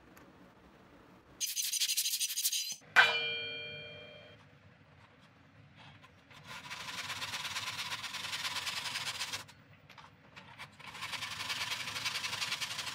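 Fine-toothed hand saw crosscutting a strip of hardwood in a plastic miter box, cutting short floating tenons: two runs of rapid rasping saw strokes, the first about three seconds long, the second near the end. Before the sawing, a brief hiss and then a single sharp metallic clink that rings on for over a second.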